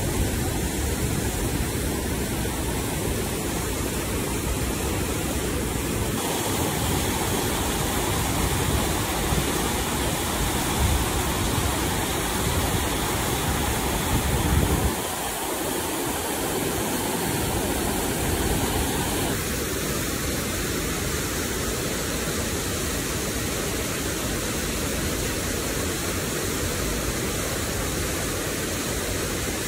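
Water rushing steadily through an open dam gate, released to flush accumulated silt and debris. The sound shifts suddenly a few times, and about halfway through its deepest part drops away for a couple of seconds.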